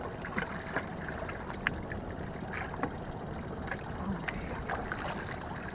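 Seawater sloshing and lapping against concrete breakwater cube blocks, with many light splashes and clicks scattered through.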